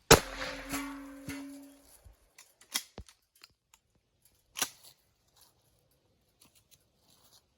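A single 12-gauge shotgun shot from a Winchester Model 12 pump-action, fired with a clay target load, ringing on and dying away over about two seconds. A few sharp clicks and knocks follow.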